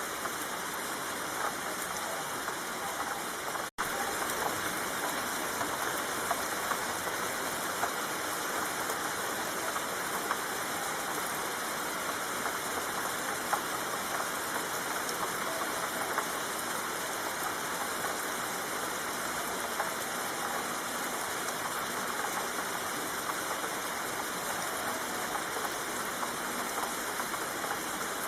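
Steady rain falling: an even hiss of rainfall with scattered drop ticks. It cuts out for an instant about four seconds in.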